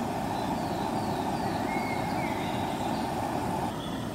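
Portable gas camping stove burner running under a pot, a steady rushing noise; the sound shifts about three and a half seconds in. Faint, short falling chirps repeat high above it.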